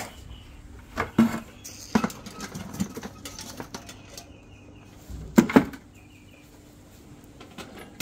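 Fish being handled and dropped on a wooden table: a scatter of wet slaps and knocks on the boards, with two louder ones in quick succession about five and a half seconds in.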